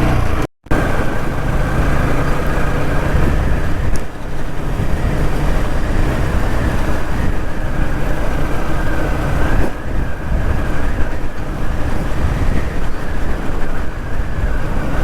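Motorcycle riding on a rough, broken road: steady engine, road and wind noise picked up by the rider's microphone. The sound cuts out briefly about half a second in.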